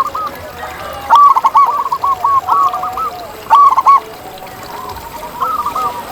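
Zebra dove (perkutut) singing: phrases of quick, staccato cooing notes, the first starting about a second in, a short burst in the middle and another phrase beginning near the end.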